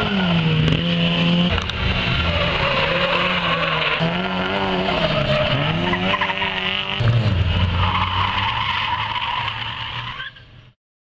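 Small car's engine driven hard around a tight cone course, revving up and dropping back again and again through the turns and gear changes, with tyres squealing. The sound cuts off suddenly about ten and a half seconds in.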